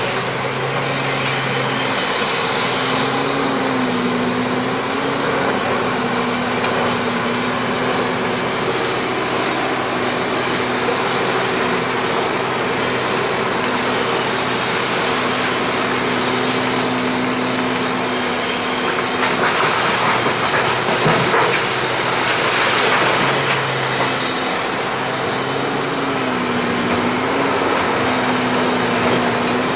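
Komatsu PC1250 hydraulic excavator's diesel engine running steadily, its pitch sagging briefly twice as it takes load. A louder rushing noise lasts a few seconds about two-thirds of the way through.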